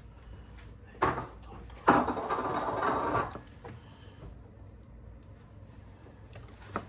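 Pepper mill grinding black pepper onto raw lamb shanks: a short grind about a second in, then a longer rattly grind of about a second and a half.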